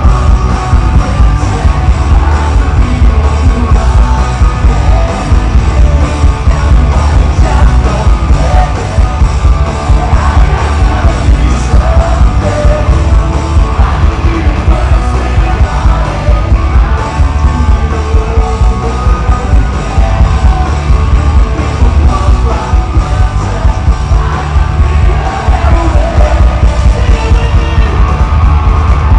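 Live rock band playing a song loud through the PA: drums, bass, electric guitars and piano under a singing voice, heard from within the crowd.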